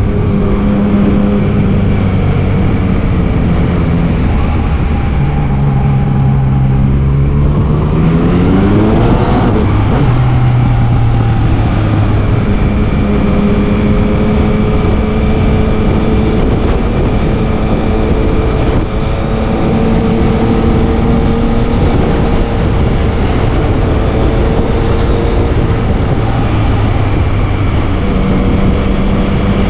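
Yamaha MT-09's inline three-cylinder engine running at steady revs under way. About a third of the way in, the revs climb, then drop back on a gear change, over a loud low rush of road and wind noise.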